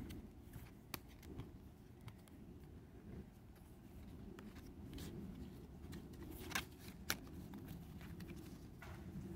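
Glossy photocards being handled and shuffled by hand, with light scattered clicks of card edges, two sharper ones about six and a half and seven seconds in, over a low steady rumble of outdoor traffic noise.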